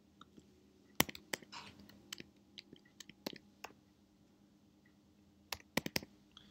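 Quiet key presses on a computer keyboard: a quick run of keystrokes in the first few seconds and a short cluster of clicks near the end.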